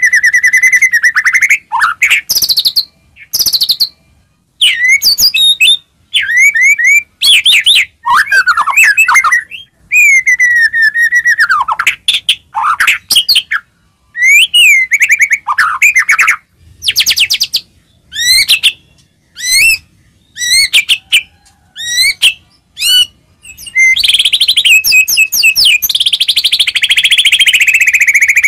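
White-rumped shama (murai batu) singing loudly: a string of varied whistled phrases, sliding notes and quick trills with short pauses between them, turning into a long, fast, buzzy rattle in the last few seconds. It is a provoking song used to spur a captive shama into singing and fighting form.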